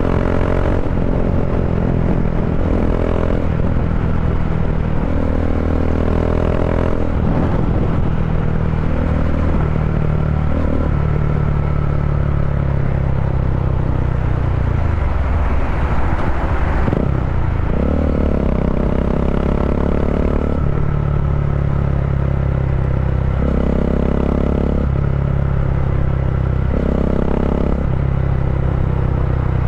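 Bajaj Dominar 400's single-cylinder engine running at highway speed through an Akrapovic-style slip-on muffler, with the catalytic converter replaced by a resonator. The engine note holds steady, then shifts in steps as the bike eases off and slows.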